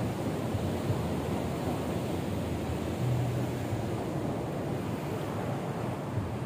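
Ocean surf washing onto the shore, a steady rush of waves.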